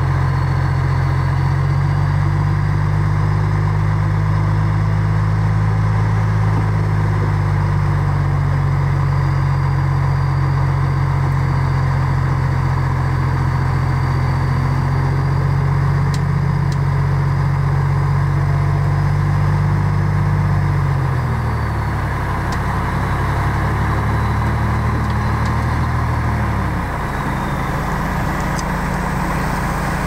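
Large diesel engine of heavy road-building machinery running steadily, its note dropping about two-thirds of the way through and again near the end.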